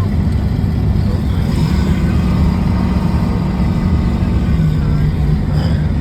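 Steady engine and road noise of a vehicle being driven, a constant low drone with no change in speed.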